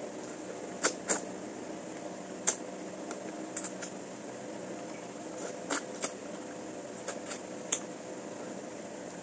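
Spoon and fork clinking against a plate or bowl while eating, about ten sharp, irregular clinks over a steady background hum.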